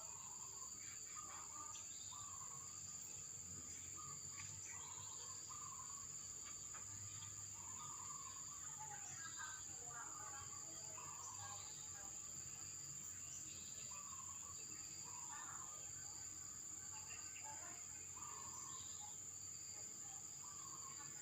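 Insects stridulating in a steady, high-pitched drone, with short bird calls breaking in every second or two.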